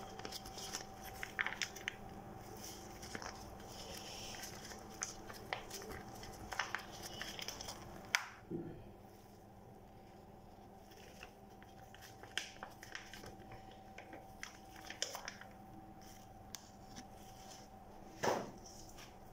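Faint crackling and rustling from gloved hands working hair-straightening cream through long hair, with scattered small clicks over a faint steady hum. A louder rustle comes about eight seconds in and again near the end.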